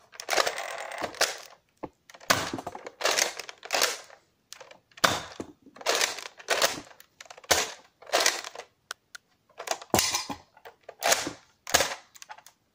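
Plastic Nerf Modulus Tri-Strike blaster being worked by hand: a series of sharp plastic clacks and rasping slides of its priming mechanism, about a dozen in all, with short pauses between them. This is the blaster the owner says keeps jamming.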